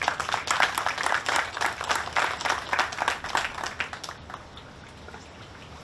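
Audience applauding, the clapping thinning and dying away after about four seconds.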